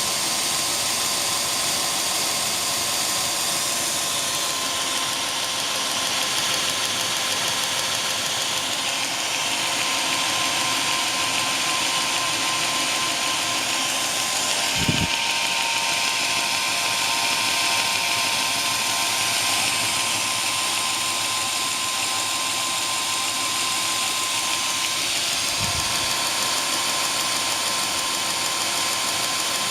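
Homemade 2x72 belt grinder running steadily with its 1.5 kW (2 hp) motor, the belt turning over the contact wheel: a steady hum with a high hiss, quite low in noise. Two brief low thumps, about halfway through and near the end.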